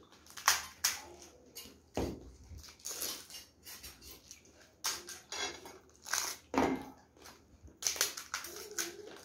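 Crisp hollow fried panipuri shells cracking and crunching as they are broken open and eaten, in an irregular string of sharp cracks, the loudest about half a second in.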